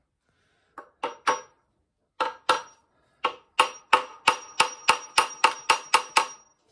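Hammer blows on a tight connecting rod cap of a 1928 Ford Model A four-cylinder engine, knocking it loose: sharp metal-on-metal strikes, each with a short ringing note. A few scattered blows come first, then from about three seconds in a steady run of about three strikes a second.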